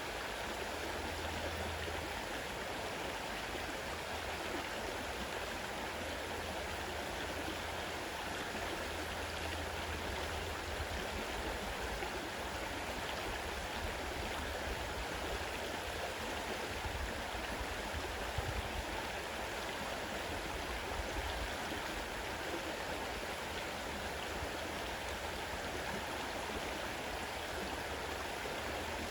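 Fast-running river water rushing steadily, with no break or change.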